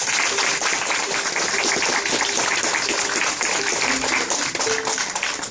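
Audience clapping and applauding, dense and steady, with a few voices over it.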